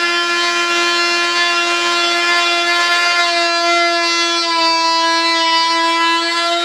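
Handheld corded rotary tool running at high speed as it trims the parting-plane flange off a cured fiberglass layup: a loud, steady, high-pitched whine.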